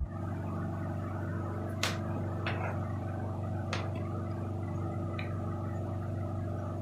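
Steady electrical hum, with a few light clicks about two, two and a half, four and five seconds in.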